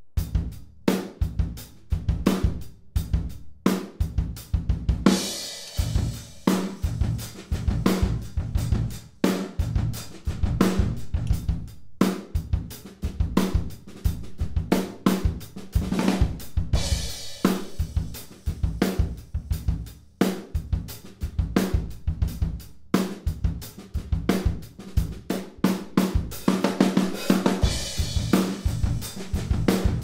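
A DW acoustic drum kit playing a groove from a studio multitrack recording: kick, snare, hi-hat and cymbal crashes, taken from close kick and snare mics, overheads and room mics. Near the end a compressed, distorted SM57 'trash' mic aimed at the wall reflections is blended in, making the kit sound bigger.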